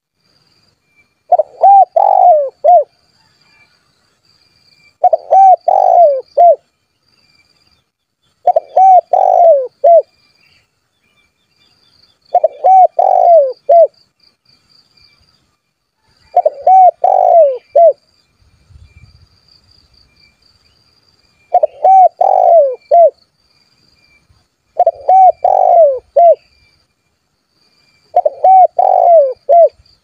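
Spotted dove cooing: eight phrases of a few rounded notes each, one about every three to four seconds, calling to a rival. Insects chirr faintly behind.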